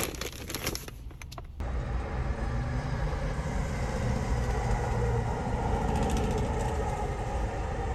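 A few light crinkling clicks, then a steady mechanical hum with a low rumble that starts abruptly about a second and a half in.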